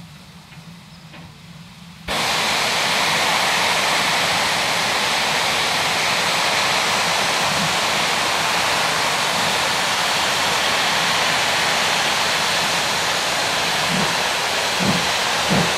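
Steam locomotive blowing off steam, most likely through its safety valves: a loud, steady hiss that starts suddenly about two seconds in. Near the end, slow exhaust chuffs begin under the hiss as the engine starts to move off.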